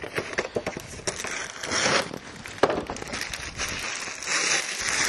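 Hands handling the opened plastic air filter box and its filter element in a BMW E46: a run of plastic clicks and crackly rustling, with one sharper click about two and a half seconds in.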